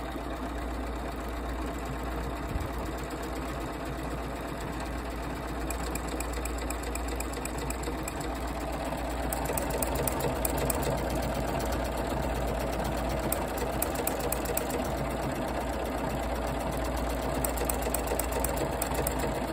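Bernina 990 sewing machine running continuously, stitching an enlarged jumbo decorative stitch while the feed moves the fabric forward, back and side to side. Its rapid needle ticking gets louder about nine seconds in.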